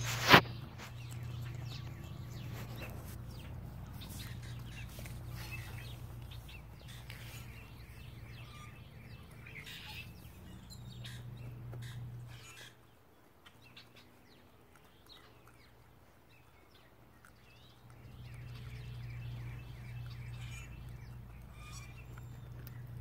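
Songbirds chirping off and on over a steady low hum, which drops out for several seconds in the middle. A single sharp click just after the start is the loudest sound.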